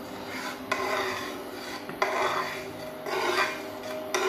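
Metal spatula scraping and stirring milk in a metal kadhai, a rasping rub against the pan in about three slow strokes.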